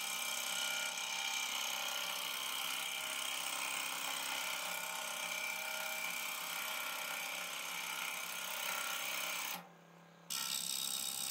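Scroll saw running and cutting through a stack of two layers of quarter-inch plywood: a steady hum, with a break of under a second near the end.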